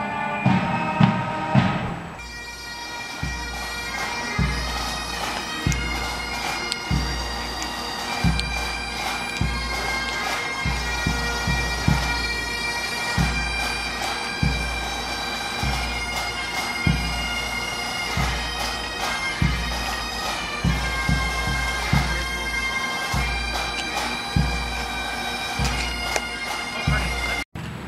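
Bagpipes playing a tune over steady drones, with a low drum beating about once a second. Louder band music gives way to the pipes in the first two seconds, and the sound cuts off suddenly near the end.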